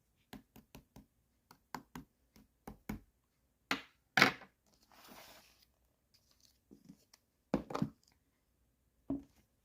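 A large slime being handled: a run of short, sticky clicks and pops, two louder squelches about four seconds in, and a few more pops near the end.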